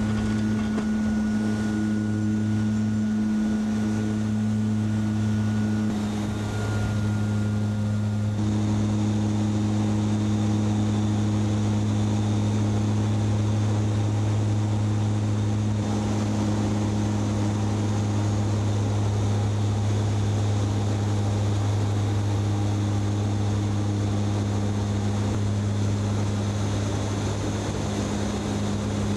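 Propeller airliner's engines droning steadily in cruise, heard from inside the cockpit: a loud, even, deep hum.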